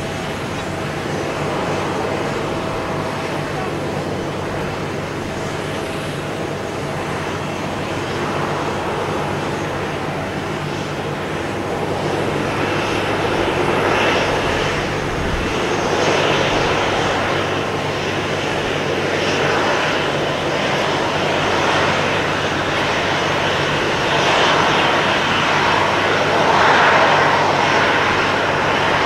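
Boeing 777-300 airliner's engines running during pushback, a steady low hum under a rushing jet noise that grows louder over the second half.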